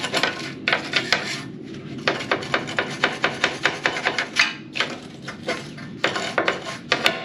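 Wire brush scrubbing rusty body metal under a fender flange in rapid back-and-forth strokes, several a second, with the bristles scraping on the steel. The runs of strokes break off briefly a few times, near two seconds in and again around four and a half and six seconds.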